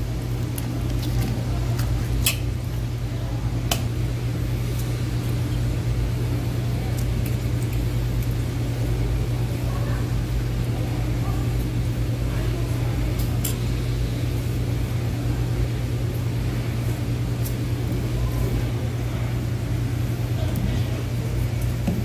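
A steady low machine hum, like a motor or compressor running, with a few sharp ticks about two and four seconds in and again about thirteen seconds in.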